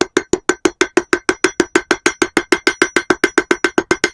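Blacksmith's hand hammer striking hot quarter-inch steel round stock on an anvil in a fast, even rhythm, about seven blows a second, each with a bright metallic ring. This is the bar's end being drawn out into a pointed taper.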